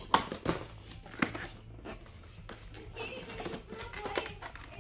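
Cardboard product box being opened by hand: a few sharp snaps and scrapes in the first second and a half as the flap is pulled, then softer rustling of cardboard and plastic packaging.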